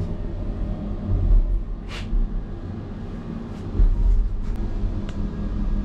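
Passenger elevator car travelling, a steady low rumble that swells now and then, with a sharp click about two seconds in and a few faint ticks later.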